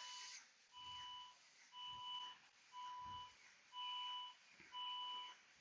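Car's electronic warning chime beeping faintly and steadily, about once a second, each beep a short two-tone note.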